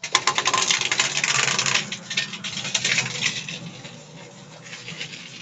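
Rapid metallic clicking and clattering from an old Ruston Hornsby stationary engine as its large flywheel is turned over by hand to start it. The clatter is loudest in the first two seconds, then eases off.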